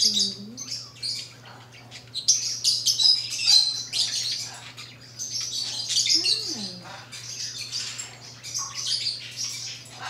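Birds chirping and twittering in quick, high bursts throughout, over a faint steady low hum.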